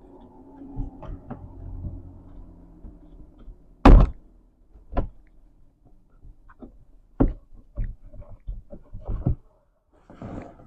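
Irregular knocks and thunks from parts being fitted and pressed into place on a car door, with one loud knock about four seconds in and a quick run of smaller knocks a few seconds later.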